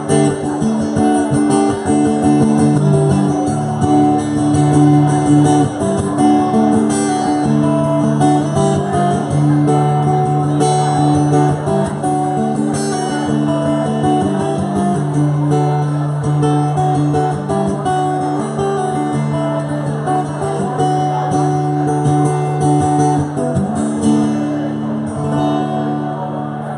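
Live music with strummed guitar chords, an instrumental passage with no singing, getting quieter near the end.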